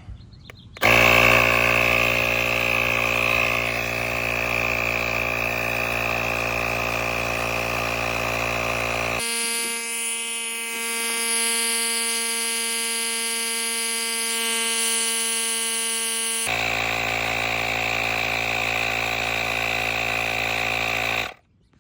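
GREPRO 160 psi cordless tire inflator's compressor running steadily while pumping up a motorcycle tire, starting about a second in and stopping abruptly near the end as it shuts off at its 35 psi preset.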